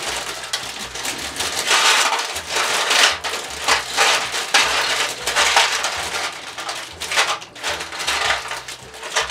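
Loose Lego pieces pouring out of a pierced plastic bag into an aluminium tray: a continuous clatter of plastic bricks on metal, coming in repeated surges as the bag is shaken.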